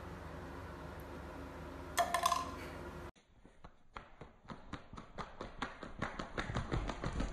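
A steady low hum with a brief squeak about two seconds in. Then, after a cut, an uneven and quickening run of taps, clicks and light thumps as a dachshund puppy bounces and shakes on a leather sofa, growing louder near the end.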